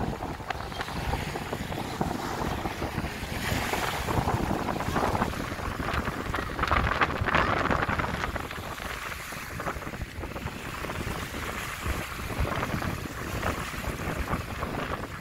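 Wind buffeting the microphone over the wash of small sea waves lapping on a sandy shore, briefly louder near the middle.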